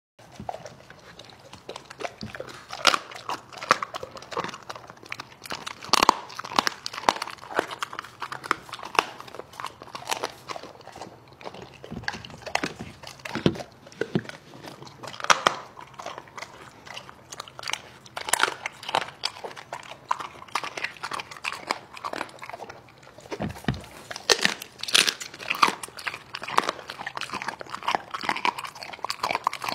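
A Doberman eating raw meat, organs and vegetables off a plate: close, irregular bites, snaps and chewing, several every second.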